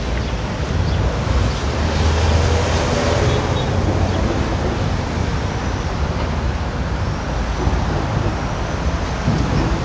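Street traffic with trucks passing close by: a steady rushing noise with a heavy low rumble, strongest about two seconds in, mixed with wind buffeting the phone's microphone.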